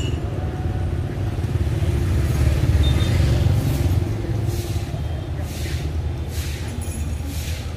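Low rumble of street traffic, swelling a couple of seconds in as a vehicle passes.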